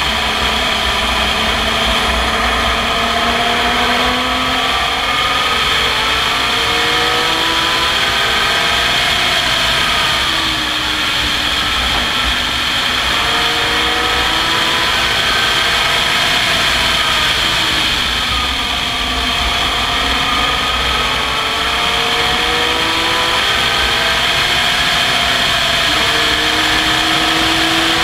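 A race car's engine at speed, heard from a camera mounted in the open cockpit. Its pitch climbs and then falls back several times, with the biggest drops about ten and eighteen seconds in, as the car accelerates, shifts and slows for corners. Heavy wind rumble sits under the engine.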